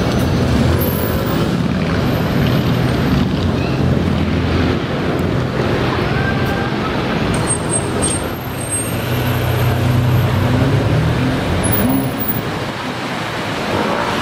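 Mansory Stallone's Ferrari 599 V12 running at low revs in slow traffic: a steady, deep engine note, with other traffic around it.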